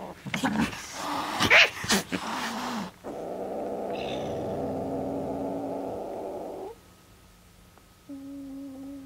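Kittens mewing, with loud rustling as a hand handles them, during the first three seconds. Then a steady chord of tones holds for about three and a half seconds and cuts off abruptly, and a short, quieter held tone sounds near the end.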